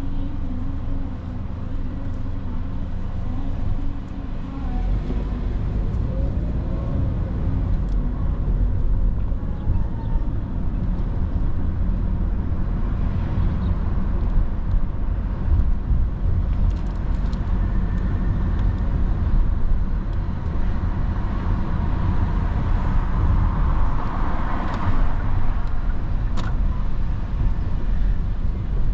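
Car in city traffic. Its engine is at first stopped at a light, then pulls away about four seconds in and keeps up a steady low rumble of engine and tyres, with other traffic around. There is a short click near the end.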